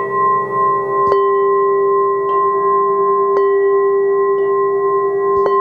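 Rock-crystal (quartz) singing bowls ringing together in several steady, overlapping tones. A bowl is struck about once a second, five times in all, each strike renewing the ringing.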